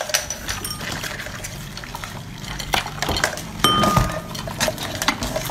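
Alcohol poured from a glass bottle over a bowl of live raw crabs, then a hand tossing the crabs in the bowl. There is a continual clatter of shells clicking against each other and the bowl, with a brief glassy ring near the end.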